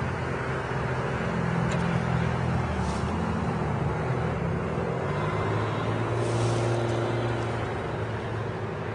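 Motor vehicle engine hum from road traffic: a steady low drone whose pitch shifts about five seconds in, with a brief hiss a second later.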